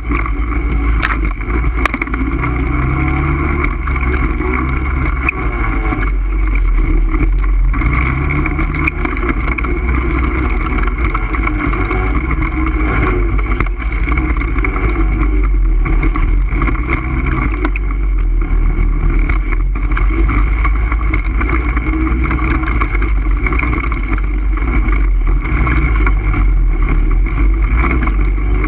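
All-terrain vehicle engine running steadily while the ATV is ridden.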